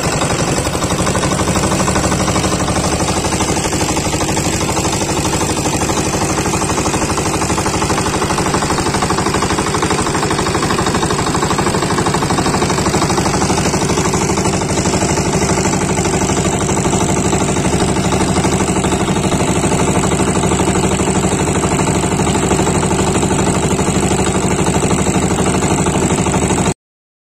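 A small 4 hp single-cylinder diesel boat engine running steadily at constant speed with a rapid knocking beat, driving the propeller shaft of a wooden boat under way. The sound cuts off abruptly just before the end.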